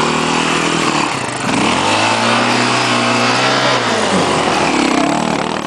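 Enduro dirt bike engine revving as it climbs past close by, the pitch rising about a second and a half in, held under load, then dropping around four seconds in as the bike pulls away.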